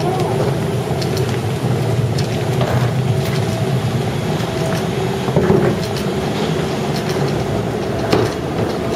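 Steady mechanical drone of airport and aircraft ground machinery heard from inside a jet bridge, with a low hum and a couple of held tones, light clicks and faint voices over it.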